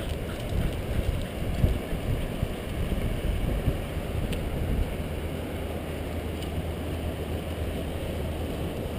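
Wind buffeting the microphone: a low, steady noise with a few soft bumps in the first couple of seconds.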